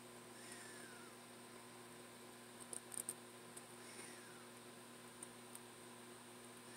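Near silence with a steady electrical hum, broken by a few faint, tiny clicks about three seconds in and a couple more later: small metal tassel caps and thin wire being handled between the fingers.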